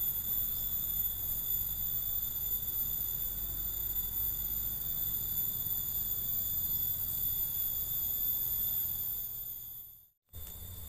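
Insects buzzing steadily in the trees: several high, unbroken tones over a low rumble. The sound fades out about nine seconds in, cuts off briefly, then comes back.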